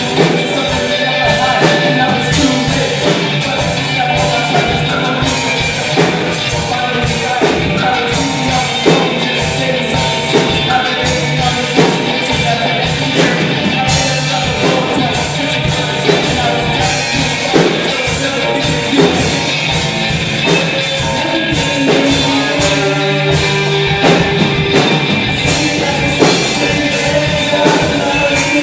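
Live rock band playing: amplified electric guitars over a drum kit, with a steady beat.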